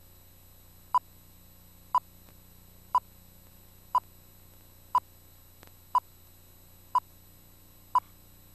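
Short electronic beep repeating exactly once a second, nine beeps in all, over a faint steady hum.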